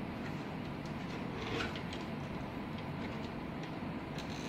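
Faint small clicks and rustles of hands handling parts on an air conditioner control board, a few scattered taps over a steady low room hum.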